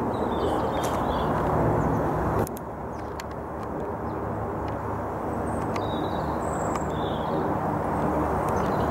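Steady outdoor rumble that drops abruptly a couple of seconds in and slowly builds again, with small birds chirping several times and a few faint clicks.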